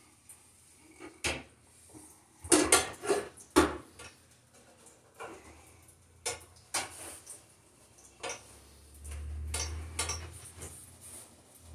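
Scattered metallic clinks and knocks from a Broan sheet-metal bathroom exhaust fan housing being handled and turned, the loudest in a quick run about three seconds in.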